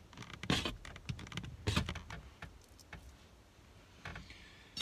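Razor blade scraping heat-blackened window tint off the inside of car glass: short scrapes and clicks, two of them stronger, about half a second and just under two seconds in.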